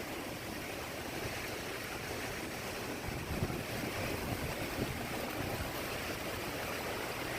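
Hurricane wind blowing in a steady rush of noise, buffeting the microphone.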